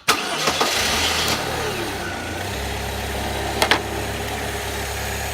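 Saab 9-3's turbocharged four-cylinder engine cranks and catches within about a second. It was started with fuse-box relay 8 jumped to get round a steering column lock fault. It then settles into a steady, smooth idle, with one sharp click partway through.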